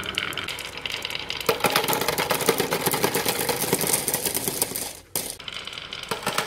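Marbles rolling and clattering down a marble run in a dense, rapid rattle of clicks. The rattle thickens about a second and a half in, stops briefly just after five seconds, then picks up again.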